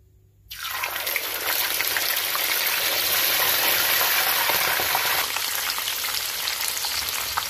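Hot oil sizzling and crackling as stuffed red snapper pieces are lowered into a pan to fry, starting suddenly about half a second in.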